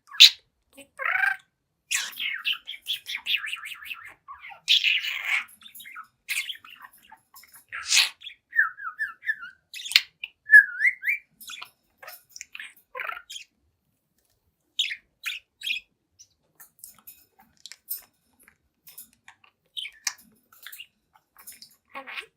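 Budgerigar chattering: a quick stream of chirps, clicks and warbled notes with a few short squawks, busy for the first twelve seconds or so, then thinning to scattered single chirps.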